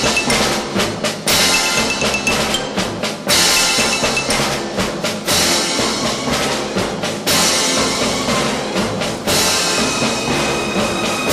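Background music with a steady drum beat and a cymbal crash about every two seconds.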